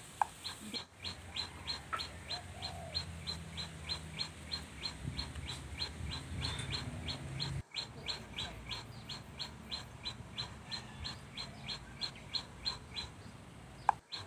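Rapid, evenly spaced high chirps, about three a second, keep on over a low hum. The sound drops out briefly twice.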